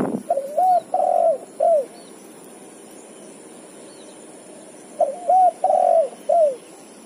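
Spotted dove cooing: two matching four-note phrases about four seconds apart, the third note of each held longest. A brief knock comes at the very start.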